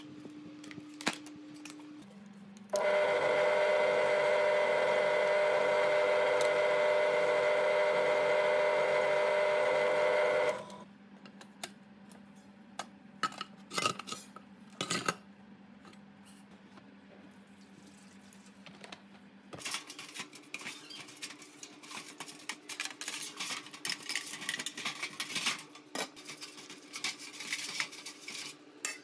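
A small electric motor runs steadily and loudly for about eight seconds, then stops. Light metal clicks and knocks follow. Later a stiff brush scrubs a metal part in a metal tray of liquid with rapid scratchy strokes.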